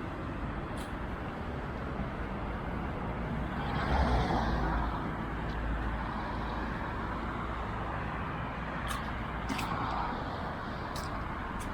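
Road traffic noise, with a vehicle passing about four seconds in; a few short faint ticks near the end.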